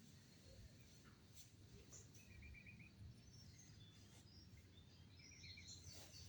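Faint outdoor quiet with small birds chirping, twice giving a quick run of about five short notes.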